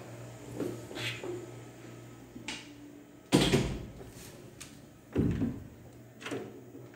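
A few separate dull thumps, the loudest a little past three seconds in and another about five seconds in, over a faint steady low hum.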